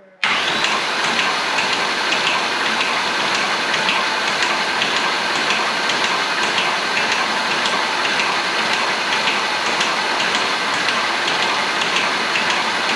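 Starter motor cranking a car engine over without it firing, a steady whir with fine regular ticking. A light rattle in it is taken for timing chain noise, from a new chain tensioner still holding air.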